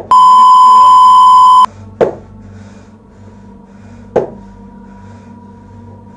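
A loud, steady electronic beep lasting about a second and a half, a buzzer marking the answer as a lie. It is followed by two sharp knocks about two seconds apart, with a faint high tone lingering after the second.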